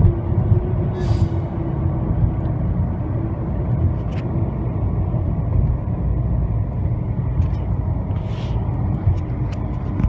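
Car driving, its road and engine rumble heard from inside the cabin as a steady low noise with a faint wavering hum.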